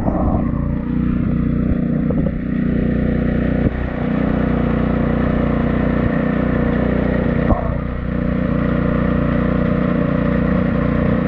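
Honda GCV190 overhead-cam single-cylinder engine on a pressure washer, running steadily at a constant speed while the pump sprays water. It is running smoothly again now that its clogged carburetor emulsion tube has been cleaned. Two brief knocks come about four seconds apart.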